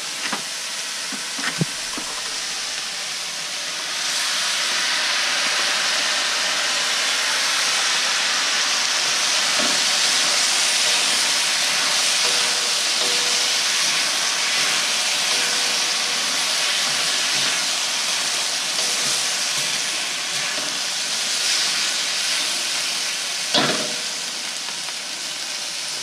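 Chicken and vegetables sizzling in a hot stainless steel wok as they are stir-fried, a steady hiss that grows louder about four seconds in. A couple of sharp knocks of the stirring utensils against the wok, near the start and near the end.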